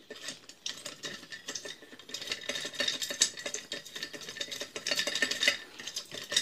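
Small metal parts of an Anauger vibrating submersible pump clicking, scraping and rattling against each other as they are fitted by hand during reassembly, in a quick irregular run of light clicks that grows busier after a couple of seconds.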